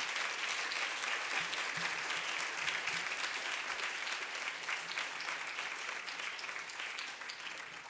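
Audience applauding, dense clapping that slowly thins and fades toward the end.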